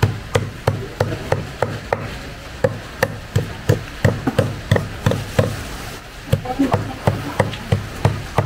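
Cleaver chopping water snake meat on a thick round wooden chopping block: sharp knocks about three a second, with short pauses about two seconds in and about six seconds in.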